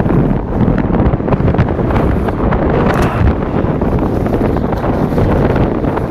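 Wind buffeting the microphone of a skier's camera while skiing downhill: a loud, steady rumble, with skis scraping over the packed snow.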